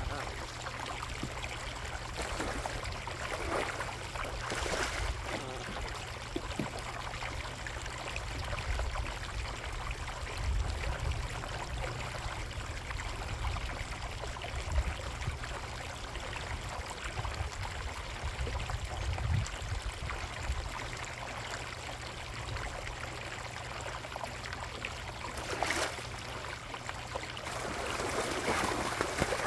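Water running and trickling steadily into a koi pond, over a low steady rumble.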